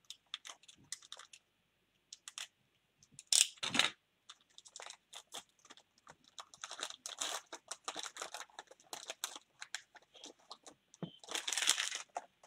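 Hands tearing open a Panini baseball card pack and handling the crinkling wrapper and cards: a run of short crackles and rustles, with louder crinkles about three and a half seconds in and near the end.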